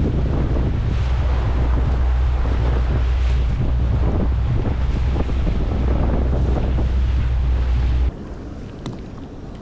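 Heavy wind buffeting the microphone over rushing sea water on a boat, a loud low rumble that cuts off suddenly about eight seconds in.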